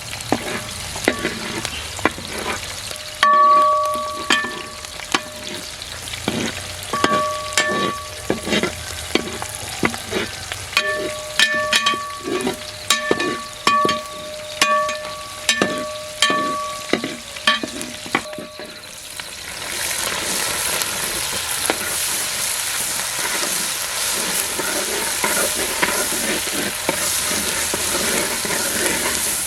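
A metal spoon stirring in a metal pan, clanking against it with uneven strokes, and the pan rings briefly with several strokes. About 19 seconds in the stirring stops and a steady sizzle of food frying in the pan takes over.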